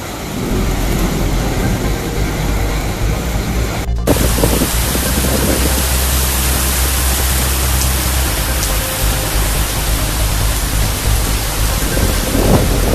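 Strong storm wind in a thunderstorm, a steady loud rush with heavy wind rumble on the microphone. It breaks off abruptly about four seconds in and resumes as a brighter, harsher hiss.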